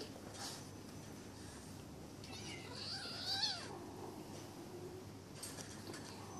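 Bengal kitten meowing once, a single call bending up and down in pitch about two and a half seconds in.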